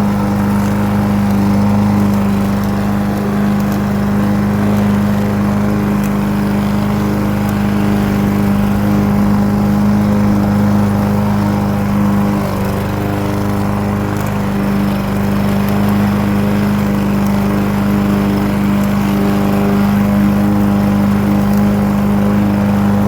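Petrol lawnmower engine running steadily at a constant speed.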